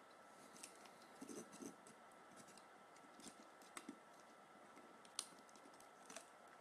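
Faint, scattered light clicks and taps of the Soul of Gold Aquarius Camus figure's parts being handled and clipped together, a few sharp ticks spread over several seconds, with a faint steady tone underneath.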